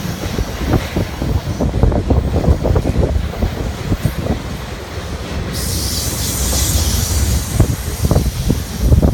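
Double-stack intermodal freight train's container well cars rolling past: a steady low rumble with irregular clanks and knocks from the wheels and cars, loudest near the end, and a high hiss for about two seconds a little past the middle.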